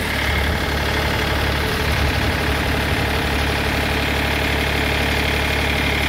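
Portable bandsaw sawmill's engine running steadily at an even pitch.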